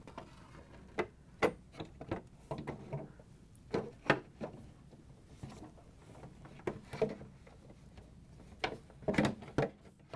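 Plastic refrigerator ice container knocking and clicking against the ice-crusher housing as it is set down over the auger and worked into place: an irregular series of short knocks, the loudest about four seconds in and again around nine seconds.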